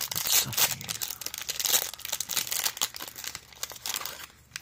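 Crinkly red plastic wrapper being pulled open and unwrapped by hand: a dense crackling that thins out near the end.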